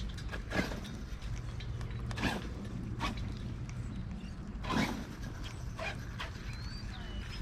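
Burning grass and brush crackling, with a few scattered sharp pops and snaps.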